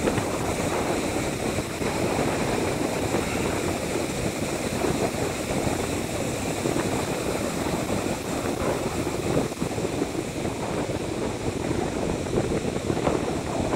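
Ocean surf breaking and washing up a sandy beach: a steady wash of wave noise.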